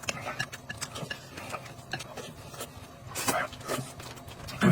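Eating sounds: chewing and mouth noises, with scattered light clicks of utensils against dishes.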